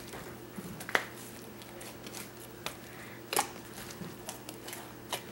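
A large mass of freshly activated slime being squeezed and pulled by hand, giving a few soft sticky pops and clicks, the sharpest about a second in and about three and a half seconds in.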